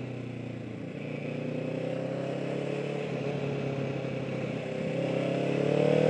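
Motorcycle engine running under way, its pitch climbing and growing louder over the last couple of seconds as the bike accelerates.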